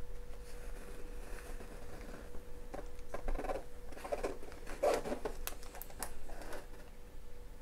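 Faint rustling and crinkling of a diamond painting canvas and its clear plastic cover film being handled and turned, with a few light clicks in the middle.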